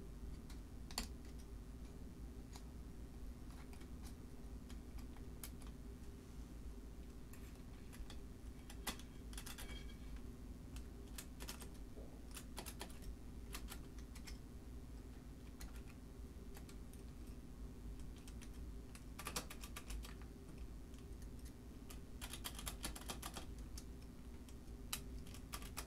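Faint, scattered metallic clicks and ticks from the register wheels and carry mechanism of a 1925 Burroughs Class 5 mechanical calculator, prodded with a pick to free parts stuck by dried-out oil. The clicks come in short quick runs several times, over a steady low hum.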